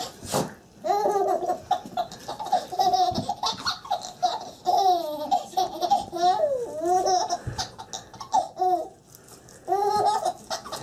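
Baby laughing in repeated high-pitched bursts, with a break of about a second near the end before the laughing starts again.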